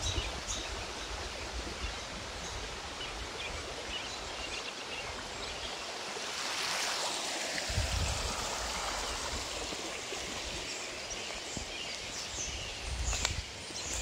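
Shallow stream rushing steadily over stones, with a few footsteps crunching in dry leaves near the end.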